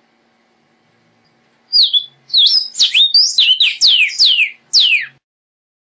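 Male vermilion cardinal singing: a fast series of loud, clear whistles that starts about two seconds in, the first few notes varied and the rest slurring steeply downward, ending about five seconds in.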